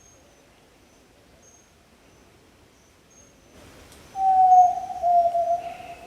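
Yellow-legged tinamou (jaó-do-sul) giving one long, low whistle about four seconds in, sliding slightly down in pitch. Faint high chirping runs behind it.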